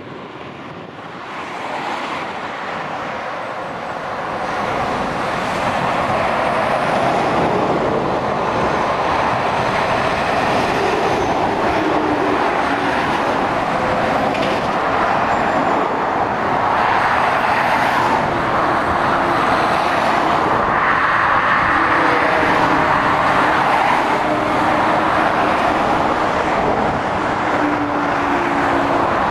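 Motorway traffic of lorries and cars passing: a continuous mix of tyre noise and diesel engine drone that grows louder over the first few seconds and then stays steady.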